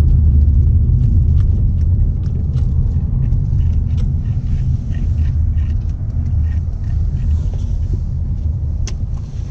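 Car driving slowly, heard from inside the cabin: a steady low rumble of engine and tyres, with scattered faint ticks.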